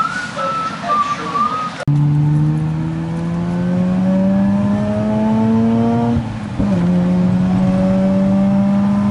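The turbocharged flat-four engine of a 2004 Subaru Forester XT, heard from inside the cabin while driving. Its pitch climbs steadily as the car accelerates, drops briefly about six seconds in at a gear change, then holds steady.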